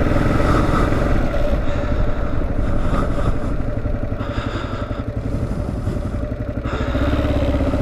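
Single-cylinder engine of a 2009 Kawasaki KLR650 motorcycle running on the road. It quietens around the middle as the bike slows for a stop sign and turns, then pulls away again with a steadier note near the end.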